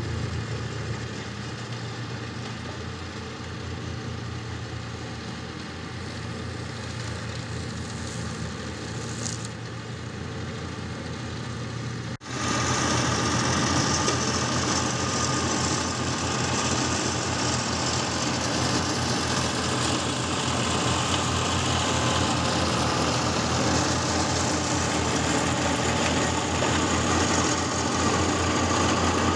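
Old John Deere tractor's engine running under load, driving a PTO-driven shredder that chops olive prunings into mulch. The tractor is farther off at first. After about twelve seconds the sound jumps to a louder, closer running engine and shredder.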